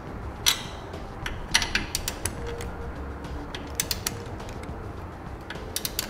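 Torque wrench working the 9/16 in lock nuts on an air helper spring's U-bolt, torquing them to specification: irregular sharp metallic clicks, a few in quick succession about a second and a half in and again around four seconds in, with single clicks between.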